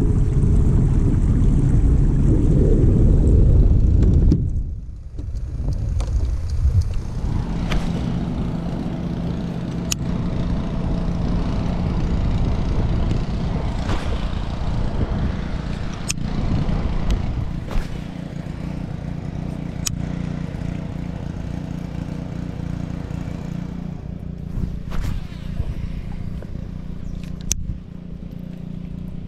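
Steady low rumble of wind and water around a fishing kayak, with sharp clicks every couple of seconds from a baitcasting reel being cast and worked.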